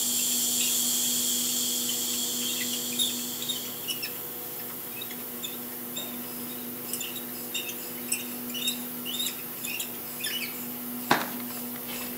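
Compressed air hissing through the air filter-regulator as it is pressurised, fading out after about three seconds. This is followed by a run of small high squeaks and chirps as the regulator knob is turned to set the pressure to about 100 PSI, and a single sharp click near the end.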